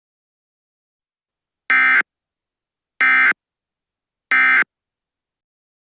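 Emergency Alert System end-of-message signal: three short SAME digital data bursts, about a second apart, that close an alert.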